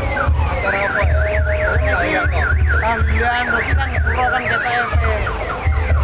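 A high electronic siren-like tone warbling rapidly up and down, about three times a second, starting about a second in and stopping about five seconds in, over a thumping deep bass beat.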